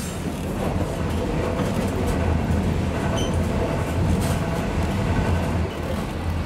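The Overland passenger train running along the track, heard from inside the carriage: a steady low rumble of wheels on rail with a few faint knocks from the bumpy ride.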